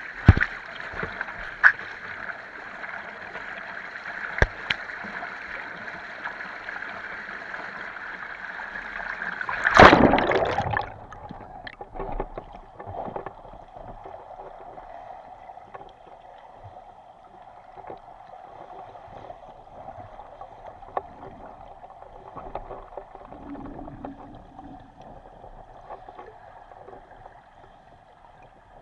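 Rushing river water with scattered clicks, as picked up by a camera in the water. About ten seconds in there is a loud burst of noise lasting about a second, after which the rush is lower and quieter.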